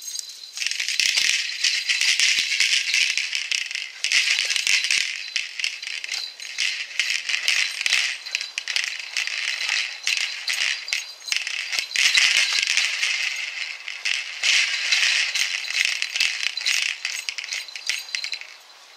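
Dense, high rattling like a shaker, in stretches of a few seconds with short breaks, stopping abruptly near the end.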